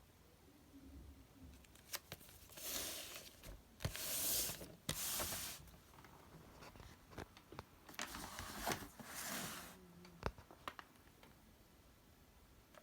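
Packaging being handled: rustling and crinkling in several short bursts, with sharp knocks and clicks between them.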